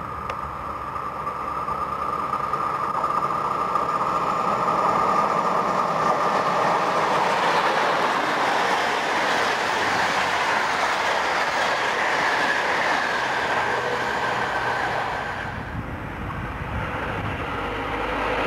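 Electric passenger train approaching and then passing close by, with its wheels clattering over the rail joints and a steady high whine. The sound grows louder over the first few seconds and turns to a deeper rumble near the end.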